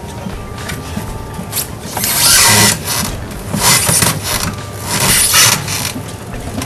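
A cork bark slab scraping against the glass walls of an aquarium as it is forced down between them, in several bursts, the loudest about two seconds in. The sound is the sign that the bark is wedged in real snug.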